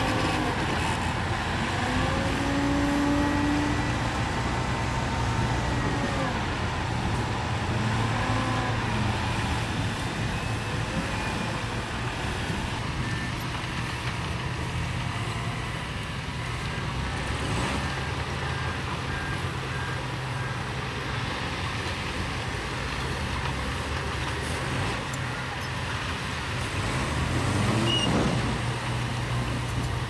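Heavy diesel dump truck engines running as the trucks raise their tipper beds to dump soil and rock. The engine pitch rises and falls several times, mostly in the first several seconds and again near the end.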